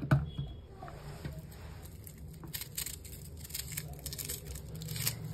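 A kitchen knife slicing a red onion, the blade tapping and clicking several times over the second half. Just before that there is one sharp clack at the very start as chopped pieces go into a plastic box, all over a low steady hum.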